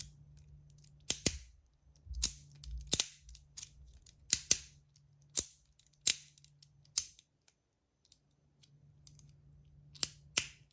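Stainless steel fidget clicking sharply as it is worked, about a dozen separate snaps at uneven intervals, some in quick pairs: the parts snapping together under magnetic detents.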